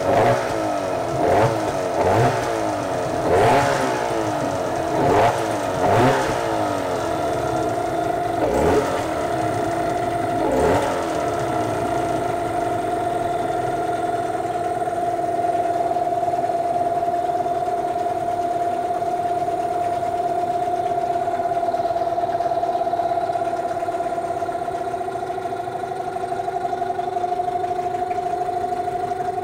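Two-cylinder Hangkai outboard motor running in a test tank. For about the first ten seconds it revs up and falls back in repeated surges, then it holds a steady speed. It runs poorly and will not idle; the mechanic blames overheating damage.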